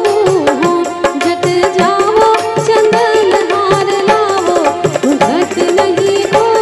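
A woman singing a Gujarati folk song into a microphone, over a steady hand-drum rhythm and a held instrumental drone.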